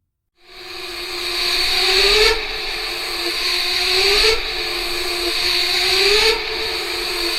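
Horror sound effect of a loud, machine-like hissing noise that starts abruptly about half a second in. Under the hiss, a low tone rises and drops back about every two seconds, cycling three times.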